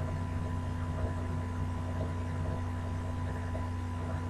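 Steady low electrical hum with a faint even hiss and a few fixed tones, unchanging throughout: background noise on the recording with no other event.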